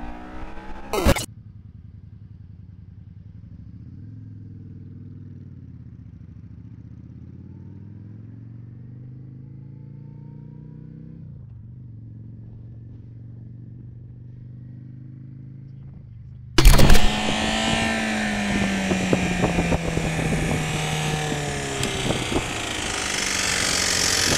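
Motorcycle engines heard from the rider's seat. First a cruiser motorcycle runs quietly at low revs, its note rising and falling gently. About sixteen seconds in, a sudden loud cut brings in a sport motorcycle with heavy wind rush, its engine note falling steadily as it slows.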